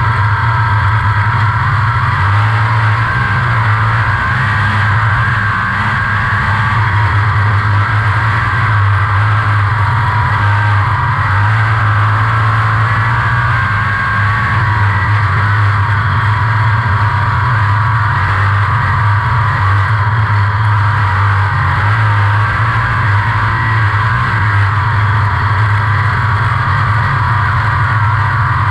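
360 sprint car's methanol-burning V8 engine running hard at racing speed, heard from the cockpit, steady with slight dips in level a few times through the laps.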